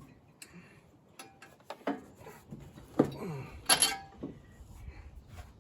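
Metal clicks and clinks of a socket wrench on a spark plug as it is tightened a quarter turn past hand tight to seat the plug's gasket. A few sharp knocks come about three seconds in and again near four seconds.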